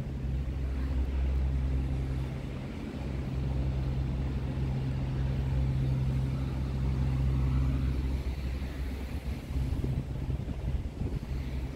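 A steady low motor hum over city street ambience, breaking up about eight seconds in.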